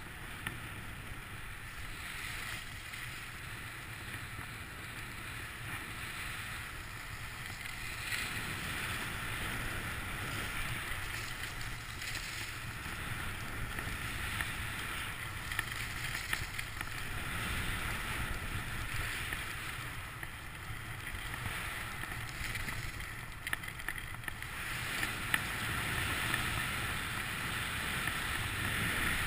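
Skis sliding over packed snow, a rushing hiss that swells and fades as the skier turns, over a low rumble of wind on the microphone.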